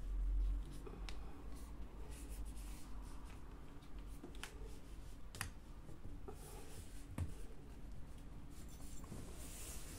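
Hands pressing and rubbing along a cord on a wall, with a few light clicks and taps scattered through, and a dull bump right at the start.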